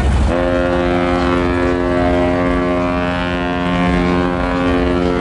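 Ship's horn sounding one long, steady blast that starts about a third of a second in, over a low rumble.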